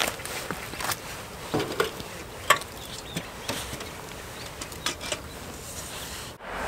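Footsteps and rustling on rocks and dry reeds, with scattered small clicks and knocks as a person steps down a bank and crouches beside fishing gear.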